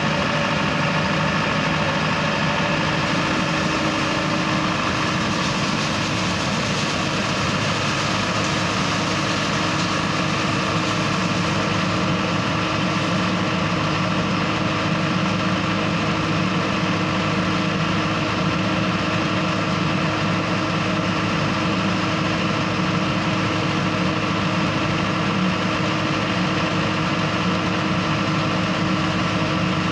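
Tow-behind leaf vacuum and the dump truck pulling it, running steadily at the curb: a continuous engine and fan drone with a few held tones and no pauses.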